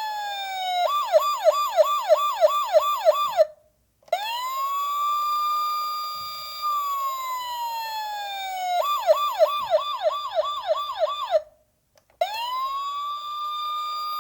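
Police car siren in a repeating cycle: a slow wail falls in pitch, then a fast yelp of about three whoops a second follows. The siren cuts out briefly and rises again. The cycle plays twice.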